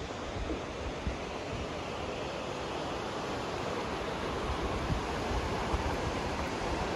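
Steady rushing of a fast mountain river over rocks, with wind buffeting the microphone.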